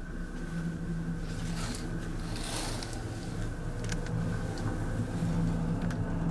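Steady low hum of a car ferry's engines and machinery, heard inside a passenger cabin. A fabric curtain swishes as it is drawn back along its rail about two seconds in.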